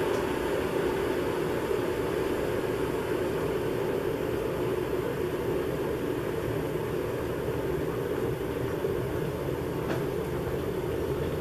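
Russell Hobbs electric kettle close to the boil, its water rumbling steadily as it heats, with a faint tick near the end.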